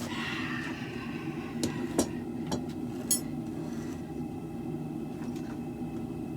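Propane forge burner running steadily, with a few light metallic clinks and taps around two to three seconds in.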